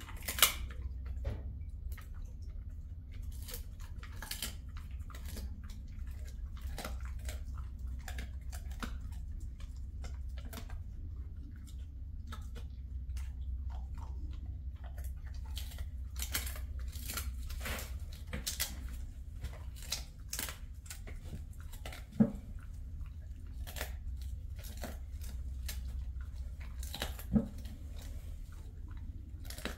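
A dog chewing a hard snack: irregular crunching bites, over a steady low hum. Three sharper clicks stand out, one just after the start and two in the last third.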